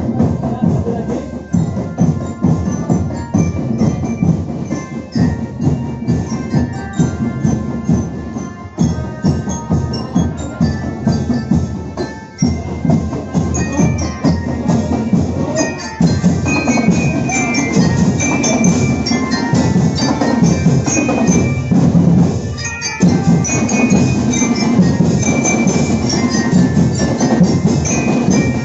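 Loud, lively percussion music: a dense, steady drum beat under a melody of bright, mallet-struck metal notes, with a few brief breaks in the rhythm.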